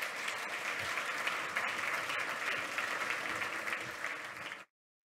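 Audience applauding, a dense steady clapping that cuts off abruptly about four and a half seconds in.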